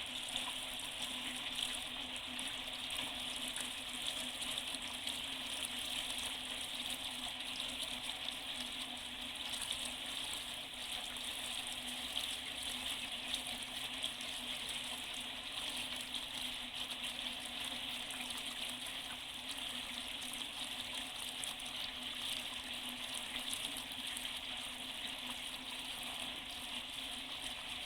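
Well water running steadily through a solar batch water heater tank and out at the bottom, rinsing the tank through.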